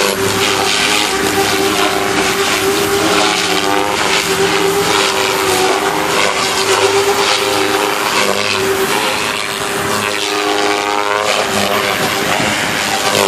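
ALZRC Devil 380 electric RC helicopter in aerobatic flight: a steady high whine from the motor and rotor head, with rushing blade noise that swells and fades as it manoeuvres. About ten seconds in, the whine weakens and slides in pitch before it steadies again.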